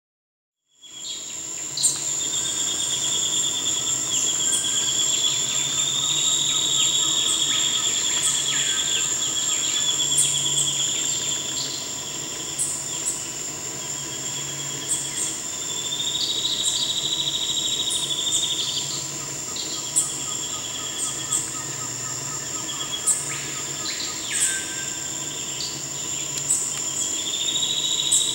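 Spot-winged antbird singing: a fast trill of high notes that rises and then falls slightly, lasting a few seconds and repeated three times, about ten seconds apart. Under it runs a steady high-pitched insect drone, with short sharp call notes scattered throughout.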